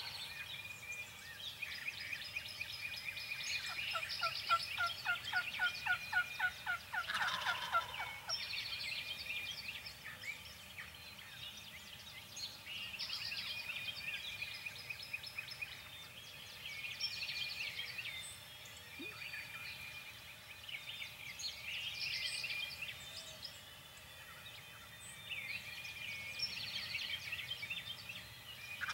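Turkey calling: a run of about a dozen quick, evenly spaced notes between about four and eight seconds in, with further calls near the start and end, over continuous songbird chirping.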